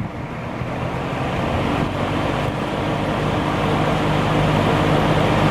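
Vintage Penncrest 50 box fan with its McMillan motor running on high, coming up to speed: the rush of air and the low motor hum grow steadily louder.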